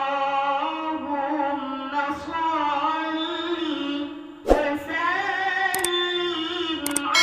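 A voice singing a slow melody of held, stepping notes over music. There is a sudden thump about four and a half seconds in, and two short mouse-click sound effects near the end.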